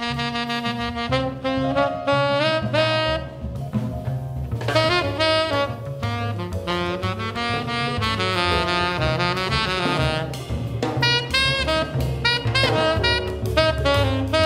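Tenor saxophone playing a jazz solo in quick runs of notes, over double bass and drums.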